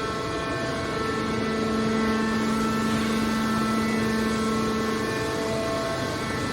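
Automatic metal baler's hydraulic power unit running: a steady machine hum with a constant pitch and no change in load.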